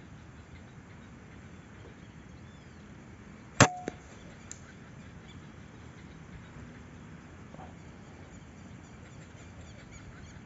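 A single sharp shot from a scoped hunting rifle about a third of the way in, with a brief ringing tone, followed by two fainter clicks within the next second.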